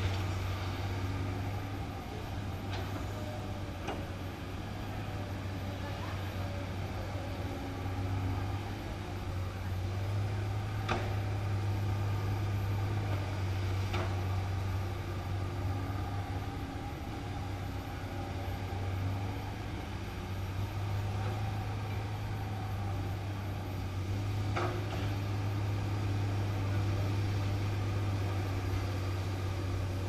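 Komatsu PC200 hydraulic excavator's diesel engine running with a steady low drone while it works, with a few sharp clanks over it, about five in half a minute.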